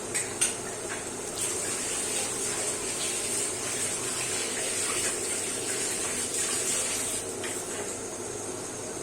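Steady hiss of food cooking in a pot on the stove, growing a little louder partway through, with a couple of light utensil clicks about half a second in.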